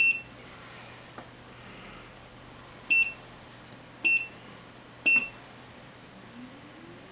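Anycubic Photon Mono X 6Ks resin printer's touchscreen beeping at each tap as its menu buttons are pressed: four short, high beeps, one at the start, then three about a second apart.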